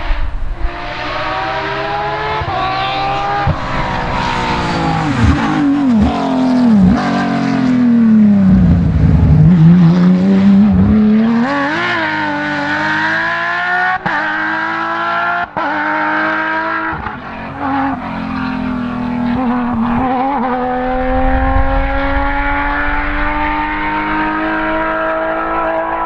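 Porsche 997 GT3 rally car's flat-six engine at full throttle on a rally stage. It drops to low revs under braking and downshifts for a corner, then accelerates away with rising pitch and quick upshifts, each upshift a brief cut in the sound.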